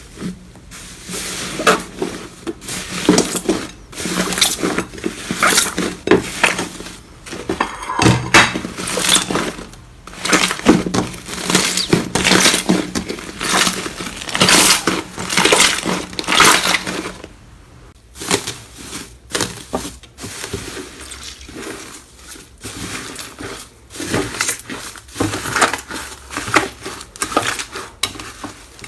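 Slime being played with by hand, squeezed and pressed: a dense run of irregular wet clicks, crackles and pops, with a short pause about two-thirds of the way in.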